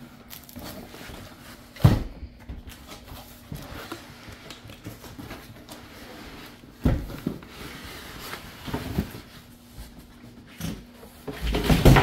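Large cardboard shipping box being handled and slid off an inner box: cardboard scraping and rubbing, with two dull thumps about two and seven seconds in and a louder stretch of scraping and knocks near the end.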